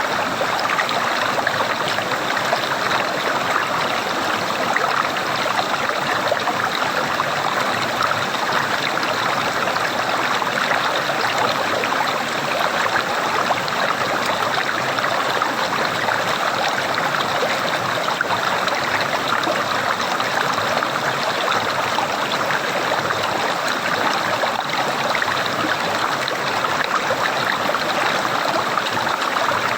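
Gurgling, trickling water flowing steadily, with no pauses or changes.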